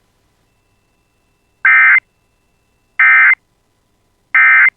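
Emergency Alert System end-of-message signal: three short, identical bursts of SAME digital data tones, each about a third of a second long and a little over a second apart, marking the end of the alert.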